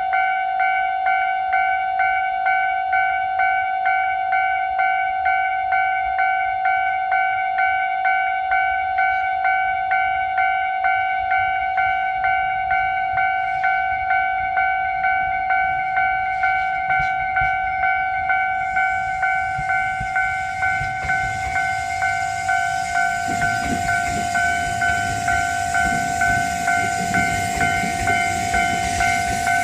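Japanese level-crossing warning bell ringing steadily at about two strokes a second. From about 19 s in, a train approaches and runs past, a Tobu 850 series train entering the station; its hiss and rumble grow under the bell.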